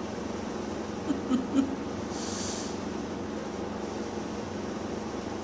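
A steady machine hum, with a few short soft sounds about a second in and a brief high hiss about two seconds in.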